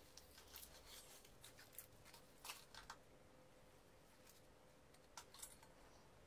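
Faint crinkling and rustling of baking paper being peeled off the bottom of a baked cake, in a few scattered soft crackles, the loudest about two and a half seconds in.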